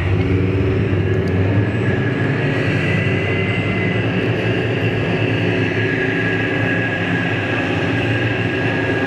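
Type 74 tanks' air-cooled V10 diesel engines running and their tracks moving, a steady engine note with a high whine over it.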